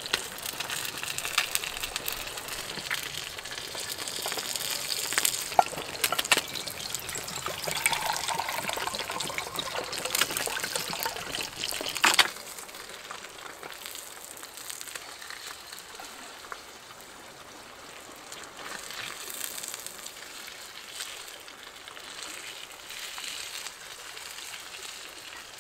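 Sea bass frying in a cast iron pan over a wood-fired firebox stove: a hissing sizzle with spitting crackles. It is louder for about twelve seconds, then drops suddenly to a quieter sizzle with scattered crackles.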